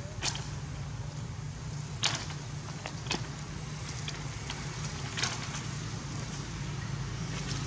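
A few light clicks and knocks, loudest about two seconds in, from the bamboo slat lattice as a young macaque steps on and handles it, over a steady low outdoor rumble.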